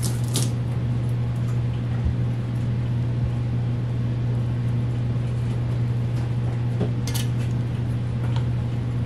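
A steady low hum, with a few faint clicks as dough is handled in a steel mixing bowl.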